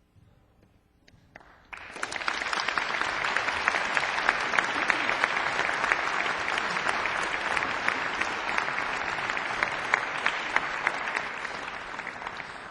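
Audience applauding in a church, starting about two seconds in after a moment of near silence and easing off slightly near the end.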